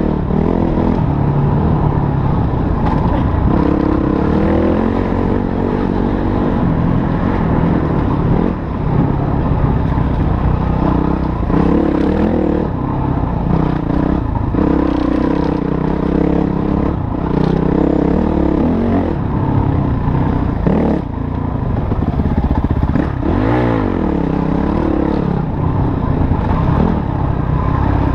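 Motorcycle engine being ridden, its pitch rising and falling repeatedly as the throttle is opened and closed, with rattling and scraping over the running noise.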